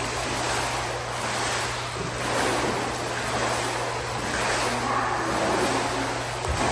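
Water splashing and churning in an indoor pool as swimmers kick and move, in swells that come and go, over a steady low hum.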